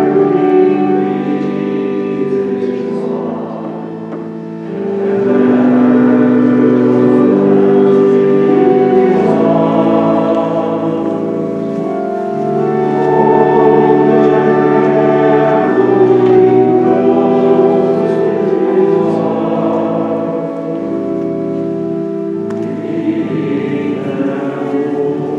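Church hymn sung with organ accompaniment, slow held chords changing every second or two.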